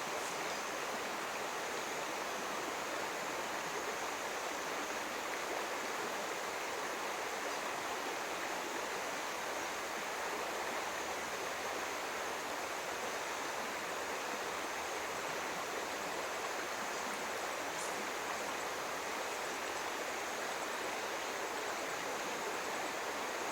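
Steady rush of flowing stream water, an even hiss with no change in level.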